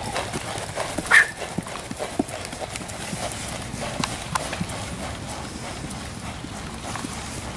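Hoofbeats of a ridden horse trotting on a gravel path: a steady run of clip-clop strikes. One short dog bark sounds about a second in.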